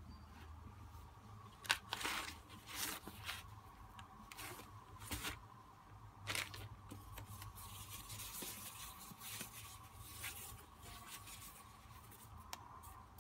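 Plastic wrapping crinkling and rustling in irregular bursts as packs of tempered glass screen protectors are handled, with the sharpest crackle about two seconds in and a softer, longer rustle in the second half.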